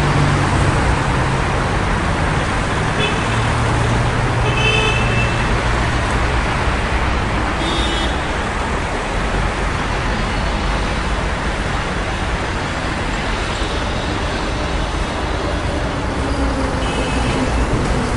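City street traffic: a continuous, dense rush of passing vehicles, with a low engine hum from a nearby vehicle in the first several seconds. Short high-pitched tones sound a few times, around 3, 4.5, 8 and 17 seconds in.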